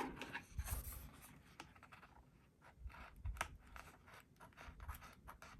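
Faint rustling, light scratches and small taps of a paper sticker being handled and pressed down onto an art journal page.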